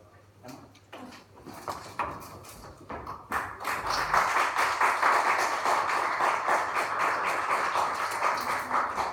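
Percussion playing: scattered soft taps and clicks, then from about three seconds in a dense, loud rattling texture of rapid clicks that holds steady.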